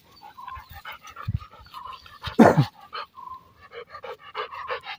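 A Labrador retriever panting in quick, even breaths, with one short louder sound, falling in pitch, about halfway through.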